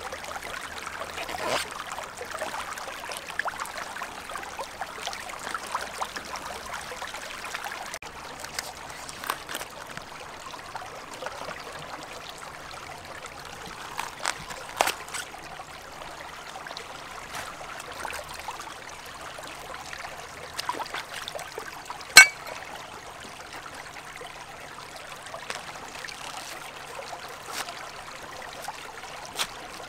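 Shallow river water trickling steadily over stones, with occasional sharp clicks from a knife cutting a banana blossom; the loudest click comes about two-thirds of the way through.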